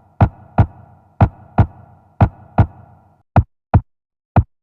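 Heartbeat sound effect made from a sampled chest beat, deepened: lub-dub double thumps about once a second. The first three pairs carry a bathroom reverb that leaves a ringing wash between beats; a little after three seconds in, the same beats repeat dry, with no reverb and silence between them.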